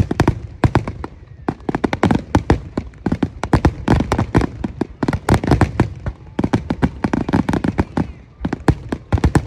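Aerial fireworks display: a dense barrage of shell bursts and crackling reports, several a second, with a brief lull near the end.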